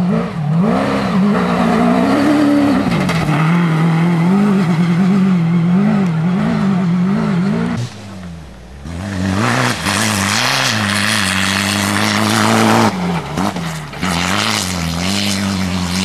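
Rally-raid car engines revving up and down through gear changes as the cars drive a sandy forest stage. The sound dips about eight seconds in, then a second car comes through louder with a rush of noise.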